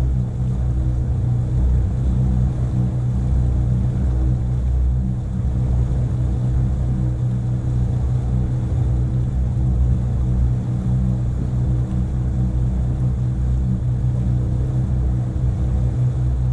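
Motor cruiser's engine running steadily at slow cruising speed: an even, low drone with a constant hum.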